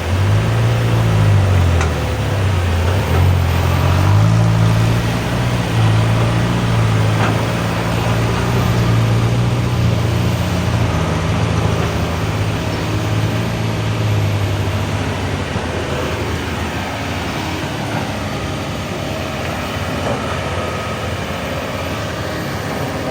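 Excavator's diesel engine running under working load. Its low note dips and climbs again in the first few seconds, holds steady, then drops back after about fifteen seconds, over a steady mechanical din.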